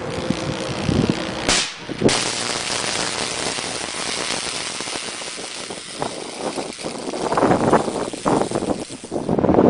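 Electric short circuit arcing: a sharp crack about one and a half seconds in, then a sudden steady hiss with scattered crackles lasting about seven seconds, which cuts off near the end.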